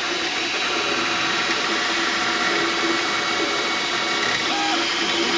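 MakerBot desktop 3D printer printing: the stepper motors drive the printhead back and forth and give off a mechanical whine whose pitch shifts as the head changes speed and direction.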